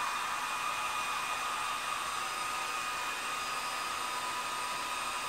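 Handheld hair dryer running steadily on high, a rush of air with a steady whine from its motor.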